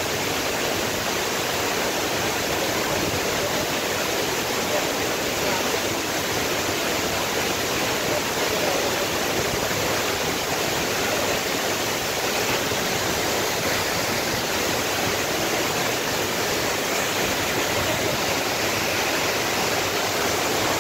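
Waterfall plunging into a rocky pool: a steady, unbroken rush of falling water.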